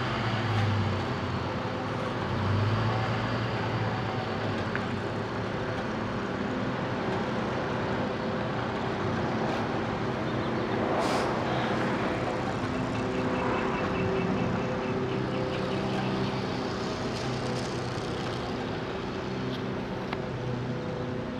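Truck engine idling, a steady low hum. A brief burst of noise about eleven seconds in, and faint rapid ticking a couple of seconds later.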